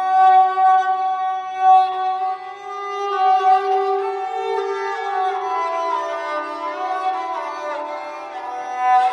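Esraj, a bowed Indian string instrument, playing a slow melody of held notes with slides between pitches.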